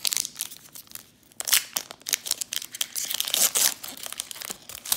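Foil wrapper of a Pokémon trading card booster pack torn open and crinkled by hand: a run of sharp rips and crackles, loudest in the middle.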